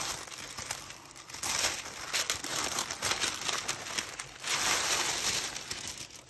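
Tissue paper rustling and crinkling as hands unfold it from around folded fabric, loudest about one and a half seconds in and again around five seconds in, quieting near the end.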